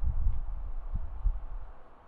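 Wind buffeting the microphone outdoors: an uneven, gusting low rumble that eases near the end, over a faint steady outdoor hiss.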